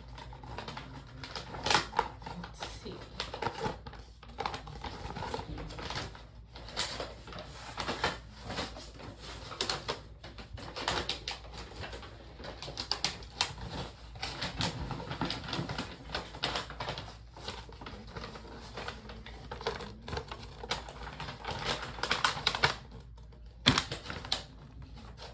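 Plastic packaging crinkling and rustling, with irregular clicks and taps as a Pokémon trading card box is unwrapped and its contents handled; a single sharp knock near the end.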